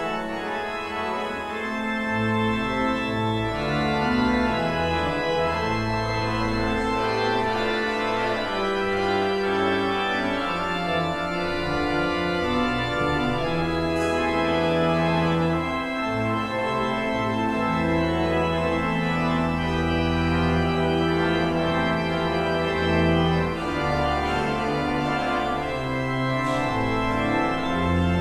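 Church organ playing the postlude after the closing blessing: sustained chords that change every second or two over deep bass notes, swelling in over the first couple of seconds.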